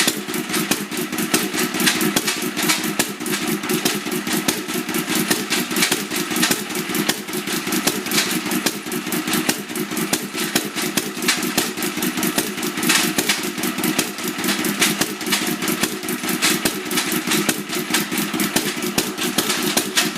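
Vintage Katsura stationary petroleum engine running steadily with a rapid, continuous clatter of knocks. The clatter is the abnormal noise the owner is chasing on the engine.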